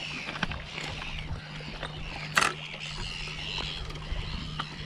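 Birds calling and chirping over wind buffeting the microphone and small waves lapping on a rocky shore, with one sharp click about two and a half seconds in.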